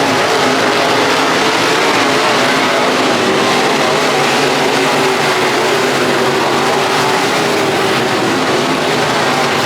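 Chevy Cobalt dirt-track race car's engine running at steady, high revs under a dense rush of track and wind noise.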